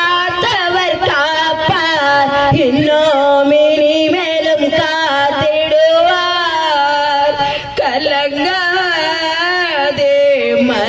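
Woman singing a Tamil devotional song into a handheld microphone, the melody held in long notes with bending, wavering pitch.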